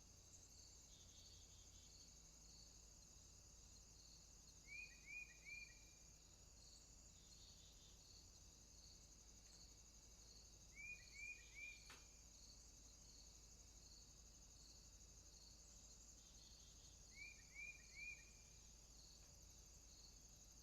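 Faint outdoor afternoon ambience of insects: a steady high trill with a regularly pulsing note beneath it. Three times, about six seconds apart, a bird breaks in with a quick call of three short falling notes.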